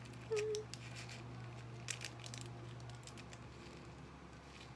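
Candy sprinkles shaken from a small plastic packet onto slime: faint crinkling of the packet and light scattered ticks as the sprinkles fall, over a steady low hum. A short tone about half a second in is the loudest sound.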